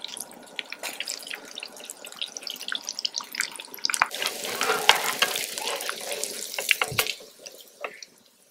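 Hush puppies deep-frying in hot oil in cast-iron pots: a steady sizzle with many small pops and crackles. It grows louder and denser about four seconds in, then dies down near the end.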